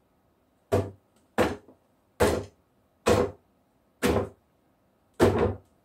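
A cloth rag slapped again and again against a gesso-primed painting board, about seven sharp slaps roughly one a second, knocking loose charcoal off the drawing before painting.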